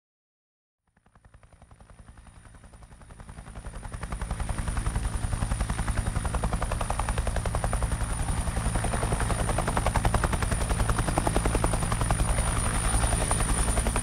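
Helicopter rotor beating with fast, even pulses, fading in over the first few seconds and then holding steady, with a thin high whine above it.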